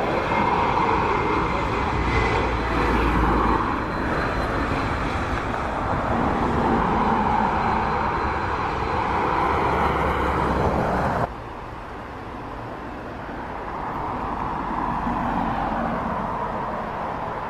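Jet engines of a Vueling Airbus A320-family airliner landing: a continuous rumble with a faint high whine as it comes over the threshold and touches down. About 11 seconds in, the sound cuts abruptly to a quieter jet engine sound from a Boeing 747 on the ground, which swells a little and eases off.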